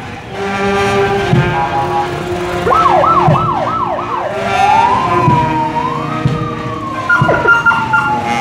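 Electronic siren on an escort motorcycle: five quick up-and-down yelps about three seconds in, then a slow wail rising and falling, then a few more quick yelps near the end. A marching band plays underneath.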